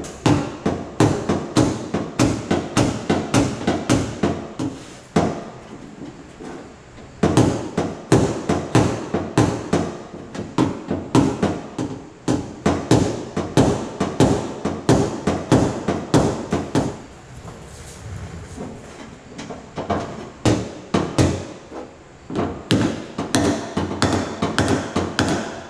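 Rapid hammer taps on the sheet-steel skin of a Chevy Traverse door, about three a second, as a dent is roughed out while the panel is pried up from inside the shell. The tapping stops for about two seconds about five seconds in, and is quieter for a few seconds near the middle before picking up again.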